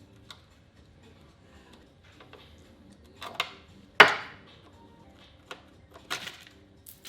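A few sharp knocks of hand tools at work on the car's front end: one about three seconds in, the loudest a moment later, and another about six seconds in. Faint background music runs underneath.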